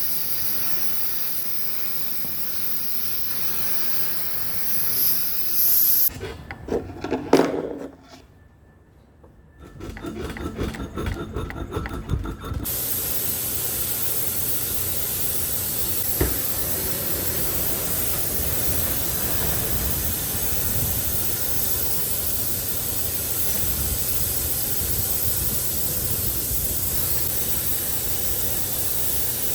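Gas welding torch flame hissing steadily. About six seconds in, the hiss breaks off for a few seconds of loud irregular noise and a brief lull, then returns and runs steadily.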